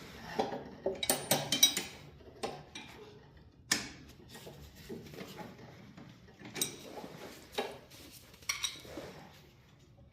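Pliers and metal hand tools clinking and clanking against the snowblower's metal parts as the oil drain pipe is worked loose: a quick cluster of ringing metallic knocks about a second in, then single sharp clinks every second or two.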